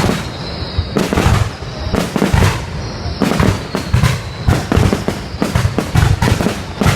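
Aerial fireworks bursting in a rapid, irregular string of booms and bangs, several a second, with crackling between them.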